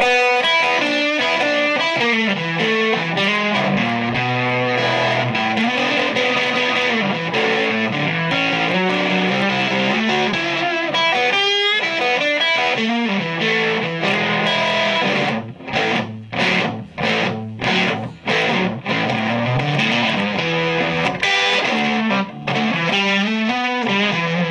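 Electric guitar played through a Victoria VIC105 'Ammo' EL84 tube amplifier: bluesy lead lines with a little distortion, with a run of short, clipped notes and gaps between them about two-thirds of the way through.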